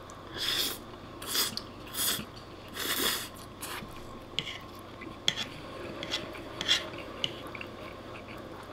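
A man slurping spaghetti in four loud sucking draws over the first three seconds, then chewing, with light clicks of a metal fork against a wooden plate.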